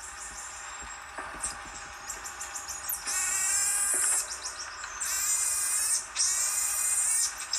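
High-pitched animal calls: a quick clicking twitter, then three chirping, whistling bursts of about a second each.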